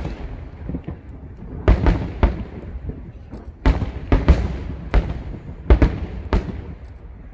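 Aerial firework shells bursting in a series of about ten sharp booms, several in quick pairs and clusters, each trailing off in a short rumble.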